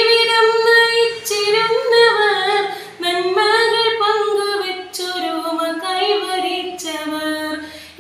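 A child singing a Malayalam patriotic song solo, in long held melodic phrases with short breaks for breath about three and five seconds in.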